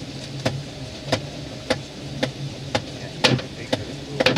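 A fish club striking a freshly landed king salmon's head again and again, about two sharp knocks a second, to stun it. Under the blows runs the boat engine's steady low hum.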